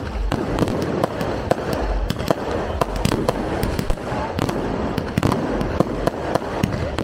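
Fireworks bursting overhead: a dense, irregular run of sharp pops and crackles over a continuous rumble.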